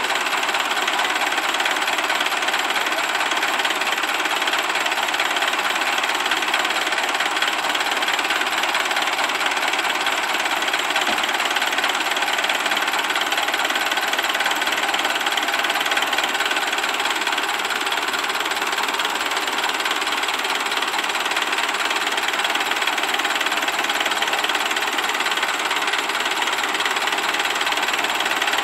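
Belarus 892 tractor's diesel engine running steadily at an unchanging speed, without revving.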